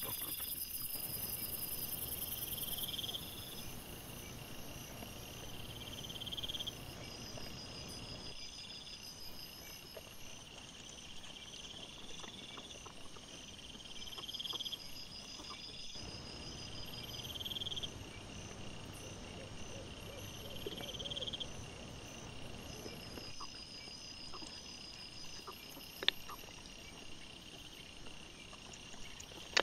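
Night insects chirping: a short rising chirp repeats about every two seconds over fainter, steady pulsing trills. A high, hiss-like trill stops about three seconds in, and a single sharp click comes near the end.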